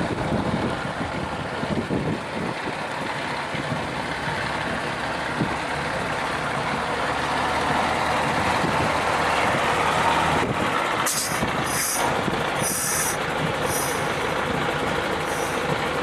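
Diesel engines of a slow column of fire trucks, among them an IFA W50, running as they drive past, the engine noise swelling a little as the nearest truck goes by. From about eleven seconds in, a run of five or six short high-pitched bursts sounds over it.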